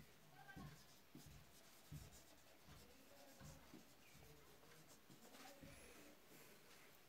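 Near silence with faint, scattered scratching and soft taps of writing.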